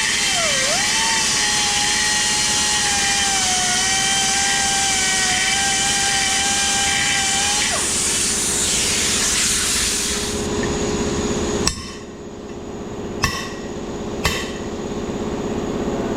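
A handheld power tool runs under load on metal, its pitch wavering, and winds down about eight seconds in. Three sharp hammer blows on metal follow, struck to free a stuck bearing race from a baler roller.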